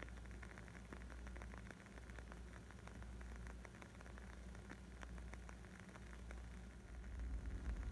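Wood fire crackling: a dense run of small, sharp pops and snaps over a low rumble, growing a little louder near the end.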